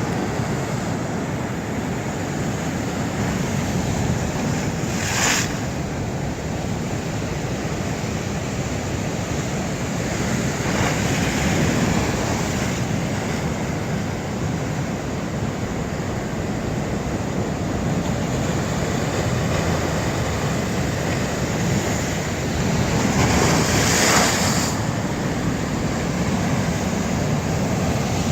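Sea surf washing onto the shore in a steady rush, with waves breaking in louder surges a few times.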